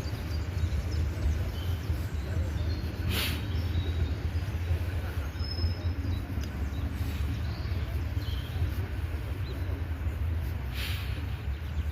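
A vehicle engine idling with a steady low hum, with two short hissing bursts, one about three seconds in and one near the end, and faint bird chirps.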